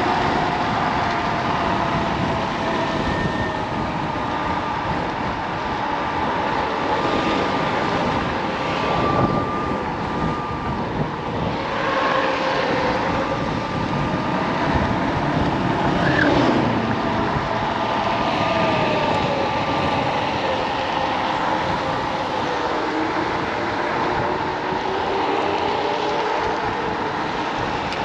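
Steady rushing wind and road noise of a Kaabo Wolf King GT dual-motor electric scooter at speed, with thin motor whines that glide up and down in pitch as the speed changes.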